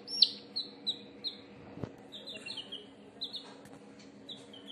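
Baby chickens (domestic chicks) peeping: a quick, irregular run of short high calls that fall in pitch, loudest at the start and fainter toward the end.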